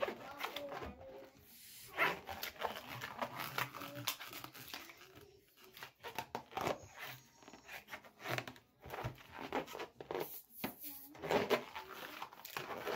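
Small Qualatex 5-inch latex balloon squeaking and rubbing under the fingers in short, irregular squeaks as some of its air is let out to make it as small as possible.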